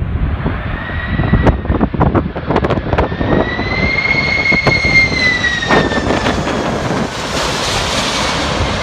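Jet airliner on landing approach passing close by: its engine whine holds, then falls in pitch as it goes past, and a broad jet roar swells near the end. Strong gusty wind buffets the microphone throughout.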